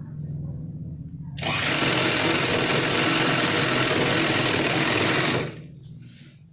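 Chauhan sewing machine running and stitching a seam. It starts suddenly about a second and a half in, runs steadily for about four seconds, then stops, with a low hum underneath.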